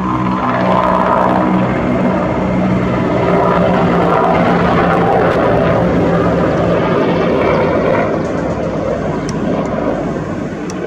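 Low-flying Mi-8-family military helicopter passing over: rotor beat and turbine whine, loudest in the middle and fading toward the end.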